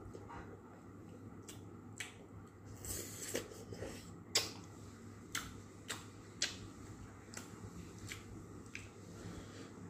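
Eating sounds: a person eating by hand, chewing with scattered wet clicks and smacks, the sharpest about four seconds in.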